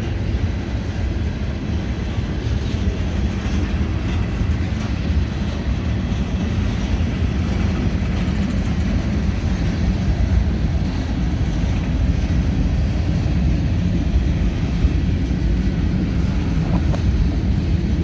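CSX freight train cars rolling slowly past as the train pulls out of the yard: a steady low rumble of steel wheels on rail.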